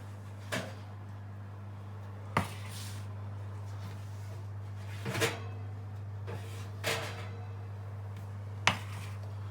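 Five separate knocks and clunks of kitchen things being handled, a second or two apart, over a steady low hum.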